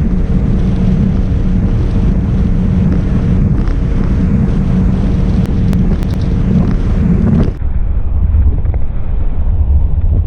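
Outboard motor of a small skiff running steadily under way, with heavy wind rush on the microphone. About three-quarters of the way through the sound turns duller.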